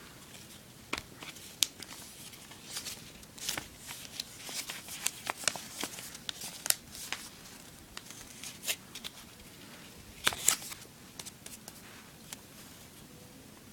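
A sheet of origami paper being folded and creased by hand, giving irregular crisp crinkles and ticks, loudest about ten seconds in.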